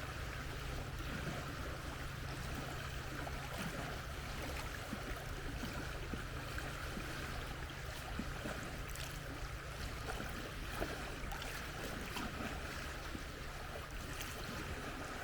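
Steady outdoor ambience: a low rumble under an even hiss, with faint scattered ticks and no distinct event standing out.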